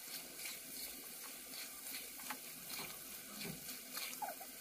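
Faint sizzling of Indian gooseberry (amla) pieces frying in mustard oil in a nonstick wok, with a few soft scrapes and taps of a silicone spatula stirring them.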